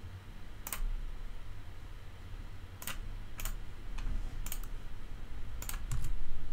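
Scattered single clicks of a computer keyboard and mouse, about six spread over several seconds, over a low steady hum.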